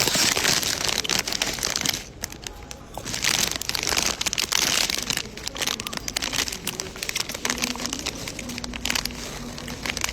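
Loud crackling, rustling noise in two surges of about two seconds each, the second starting about three seconds in, then fainter rustling.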